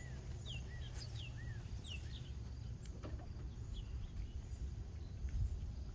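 Songbirds chirping: a run of short, quick, falling notes, about two a second, that thins out after the first few seconds, over a steady low rumble.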